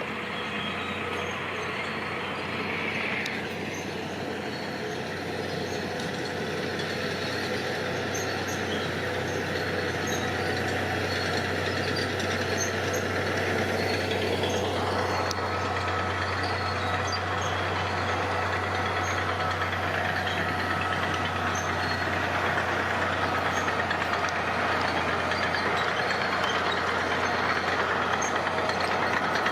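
Heavy diesel machinery running steadily, growing slowly louder. A whine drops in pitch about three seconds in, holds level, then rises again about fifteen seconds in.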